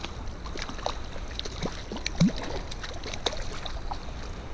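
Steady rush of a river's current, with scattered small splashes and clicks.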